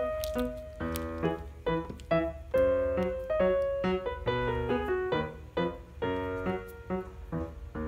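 Background music: a melody of short keyboard notes, several a second, each fading after it is struck.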